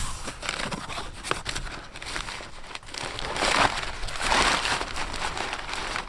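Brown kraft packing paper crumpling and rustling as it is pulled out of a cardboard shipping box, loudest a little past halfway.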